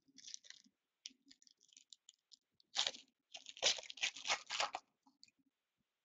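Trading-card pack wrapper being torn open and crinkled in the hands, a run of crackling tears and crinkles that is densest and loudest about three to five seconds in.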